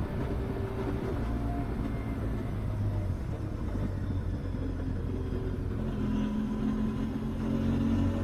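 Benelli TRK 502X motorcycle's parallel-twin engine running on the move, easing off through the middle and pulling harder again, louder, from about six seconds in.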